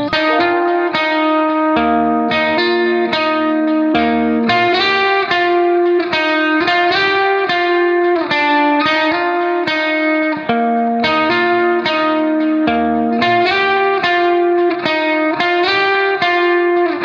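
Background music: plucked guitar notes played in a quick, even pattern, with a bass line underneath.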